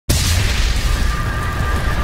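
Logo-intro sound effect: a sudden deep boom with a rushing hiss starts a moment in, then settles into a low rumble with faint music over it.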